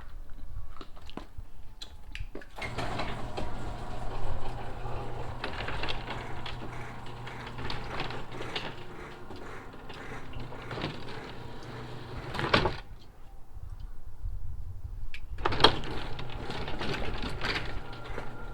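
Electric garage door opener running steadily, with a low drone, as the door moves. It stops with a clunk about two-thirds of the way in, then starts up again with a click about three seconds later.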